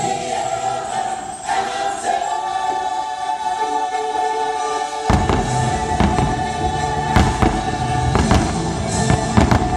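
Fireworks show soundtrack with a choir singing a long held chord. About five seconds in, a deep rumble and a run of firework bangs come in over the music, roughly two a second.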